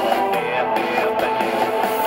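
Background music with guitar, a steady run of plucked or strummed notes.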